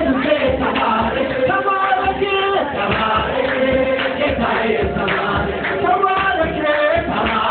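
A church choir singing with a man leading into a microphone, over a steady beat of a large kebero drum.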